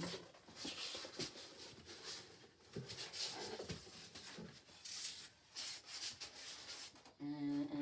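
Rustling and handling of packaging as a microwave kiln is taken out of its box, in irregular bursts, with a short steady hum of a voice near the end.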